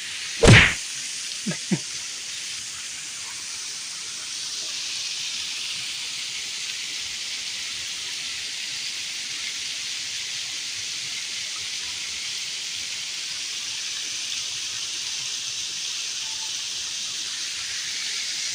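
Steady hiss of flowing river water, with one loud swish about half a second in.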